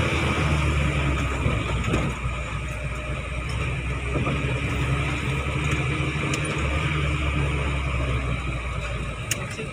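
Car engine and road noise heard from inside the cabin while driving: a steady low hum over the rush of tyres on the road.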